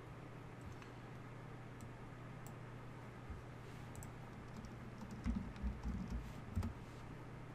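Typing on a computer keyboard: a quick run of keystrokes about five seconds in, with a few faint clicks before it, over a steady low hum.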